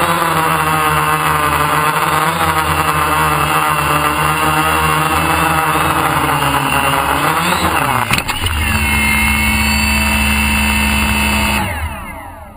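Brushless motors and propellers of a DJI F550 hexacopter whining close to the camera as it flies low. A knock comes about eight seconds in as it sets down on the grass, then the motors hum steadily at idle before spinning down near the end with falling whines that fade away.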